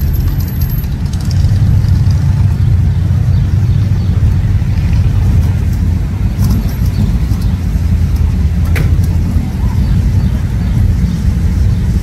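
Engines of classic cars and hot rods running at idle as they creep past in a slow line: a steady, deep rumble.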